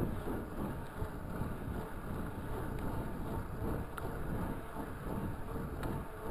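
Wind buffeting the microphone of a camera on a moving bicycle: a steady, gusty rushing rumble, with a couple of faint ticks.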